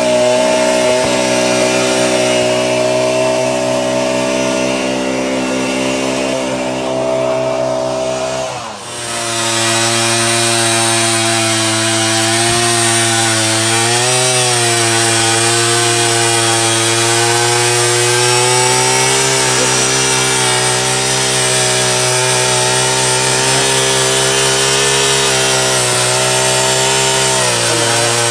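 Gas-powered ice auger running hard as it bores through lake ice, its engine note sagging briefly a couple of times under load. For the first nine seconds, before a sudden change, another steady engine drone is heard.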